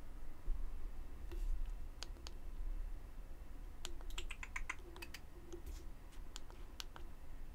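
Small sharp clicks from a Leica Q3 camera being handled as its dial and buttons are worked to change settings, with a quick run of clicks about four seconds in.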